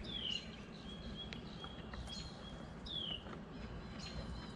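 A bird calling: a short, clear whistle that falls in pitch, heard twice about three seconds apart, with thinner high chirps between.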